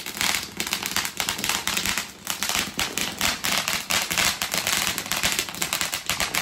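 Fireworks crackling: a dense, unbroken run of rapid, irregular pops and crackles.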